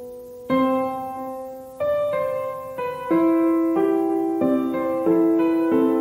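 Slow, gentle solo piano music: chords struck about once a second, each left to ring and fade.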